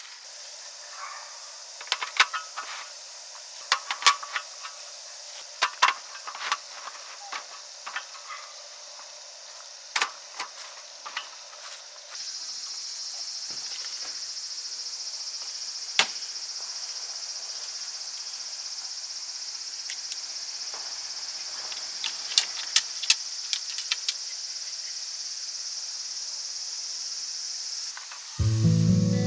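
A steady high chorus of insects chirring, louder from about twelve seconds in, with sharp clicks and light taps of things being handled, most of them in the first half. Music comes in just before the end.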